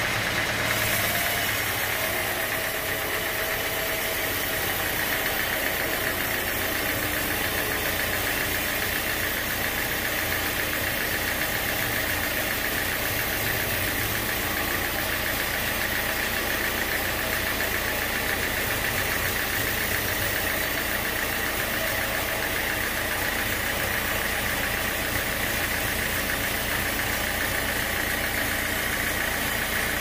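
Band sawmill running steadily, a constant machine drone and whir with no break.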